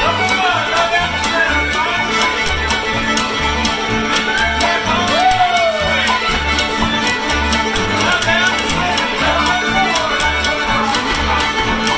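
Old-time string band playing a square dance tune: fiddle leading over banjo and guitar, with a steady, even beat.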